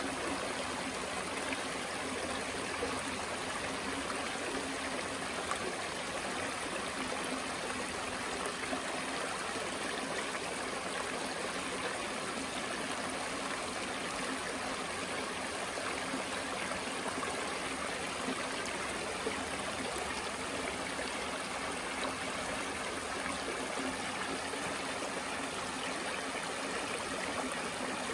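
Shallow creek flowing steadily over low, flat rock ledges, a continuous rippling babble of water.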